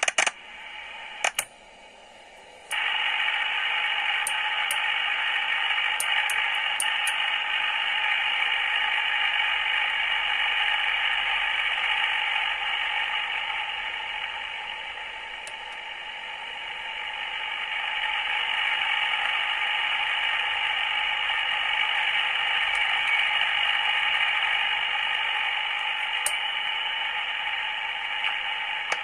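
Kenwood TS-530S HF transceiver's receiver hissing with static through its speaker. A few sharp clicks come first, then the hiss comes on suddenly about three seconds in, stays steady and dips briefly about halfway through.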